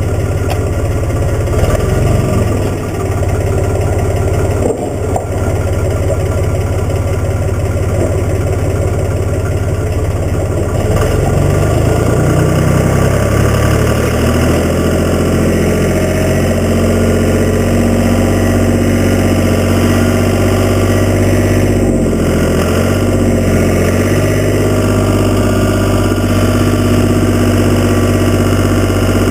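Case 385 diesel tractor engine running steadily. About halfway through its note shifts and it settles a little louder.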